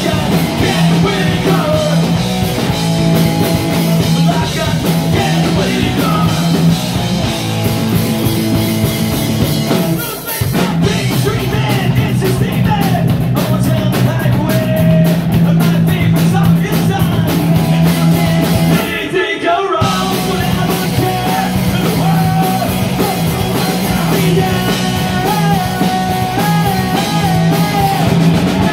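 Live punk rock band playing loud: distorted electric guitar, bass guitar and drum kit, with a shouted lead vocal. The playing breaks off briefly twice, about ten and twenty seconds in.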